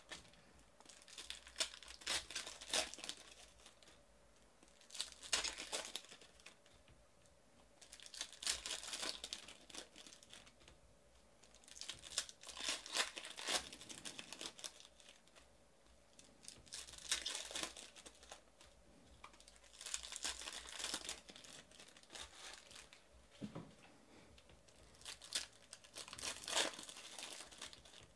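Plastic wrapping of trading card boxes and packs crinkling and tearing, in repeated bursts a few seconds apart.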